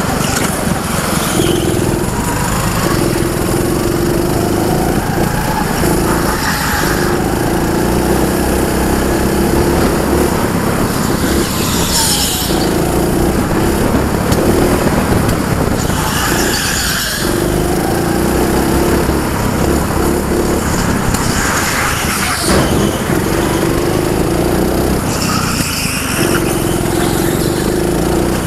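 Junior racing kart's small engine heard from on board, running hard; its pitch drops and then climbs again every few seconds as the kart lifts off and accelerates through a run of corners.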